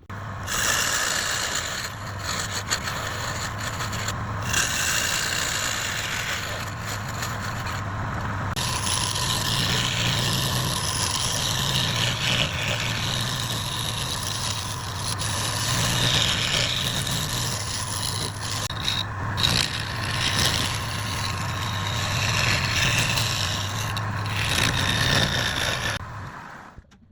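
Lathe running with a steady motor hum while a turning tool scrapes and cuts the spinning workpiece, the scraping rising and falling as the tool works.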